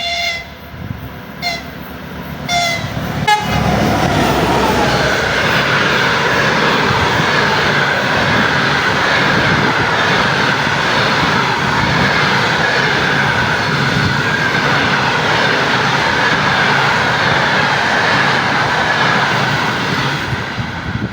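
A train sounds its horn in a blast and three short toots, then passes at speed with a loud, steady rumble of wheels on rail for about a quarter of a minute before fading away.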